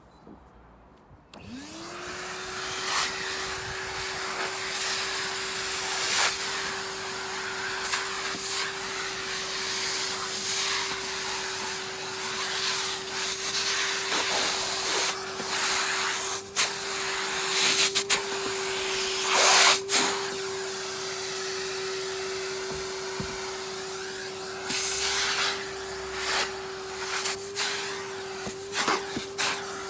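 Vacuum cleaner switched on about a second and a half in, its motor spinning up to a steady whine, sucking up the metal filings left from cutting a roof hole in a van. There are short bursts of clattering and rushing as debris goes up the nozzle.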